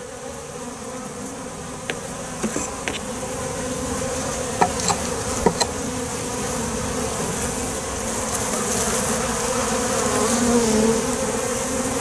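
A honeybee colony buzzing over the top bars of an open hive, a steady hum that grows gradually louder, with a few light clicks in the first half.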